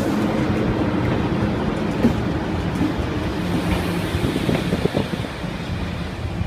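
Train running with a steady low rumble and hum, a few short clicks or knocks standing out now and then.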